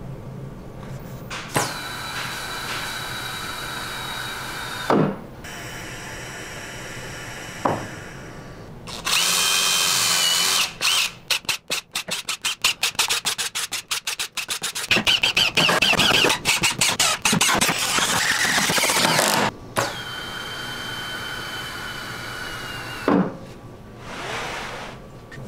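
DeWalt cordless impact driver with a countersink drill bit, boring holes in plywood. It runs in several whining stretches, with a passage of rapid stuttering on-off pulses in the middle, and short clicks between the runs.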